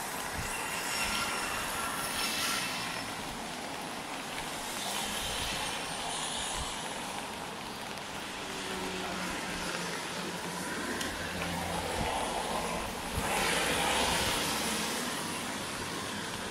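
Street traffic on wet roads: vehicles passing with tyre hiss, an engine's low hum in the middle, and the loudest pass near the end.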